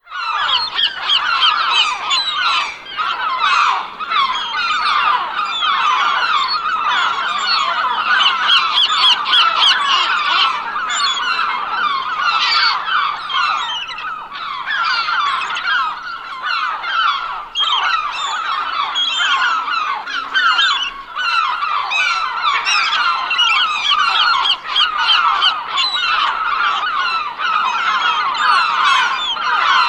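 A large flock of seagulls calling all at once: many short, overlapping squawks and cries in a dense, unbroken chorus.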